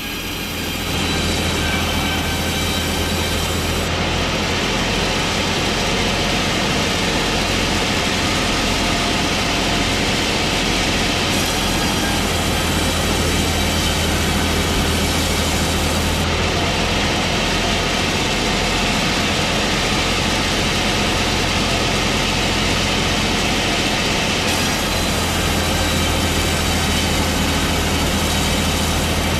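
Track saw motor running steadily, a loud continuous mechanical whir with a low hum underneath; its higher hiss changes a little every several seconds.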